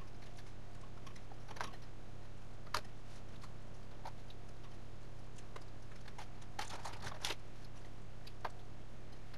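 A few soft, scattered clicks and crackles as hands spread spinach filling over pizza dough on baking paper, with a short cluster about seven seconds in, over a steady low hum.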